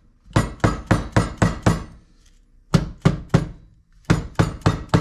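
Mallet tapping a power steering pump to seat it in its reservoir over its O-ring seal. The sharp knocks come in three quick runs of about four to five a second, with two short pauses.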